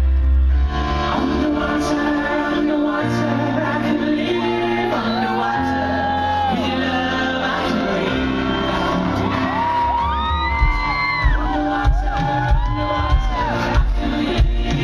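Live pop band music through a PA: held keyboard chords over a bass line, with a man singing and calling into the microphone over audience shouts. A steady beat comes in about ten seconds in.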